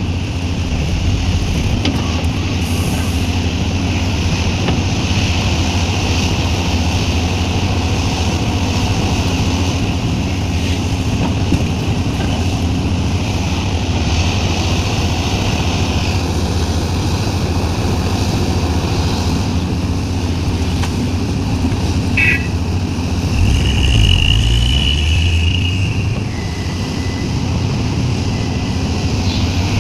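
Sumitomo SH350 excavator's diesel engine running steadily under load, with a high hydraulic whine swelling for a few seconds about three-quarters of the way through.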